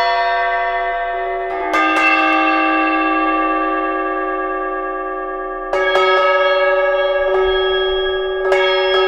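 Tuned metal percussion struck in single strokes a few seconds apart: three firm strokes and one lighter one. Each stroke rings on in a cluster of long, bell-like tones that slowly fade and overlap the next.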